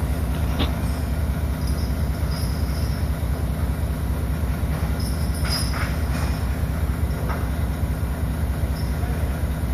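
Steady low engine drone heard from inside a lorry cab parked on a ferry's vehicle deck, with a few faint metallic clanks from the crew chaining the lorry down.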